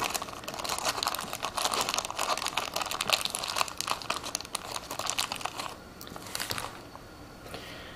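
Clear plastic parts bag crinkling as fingers handle it and pick small metal nuts and washers out of it. The crinkling is dense for about six seconds, then becomes sparse and quieter.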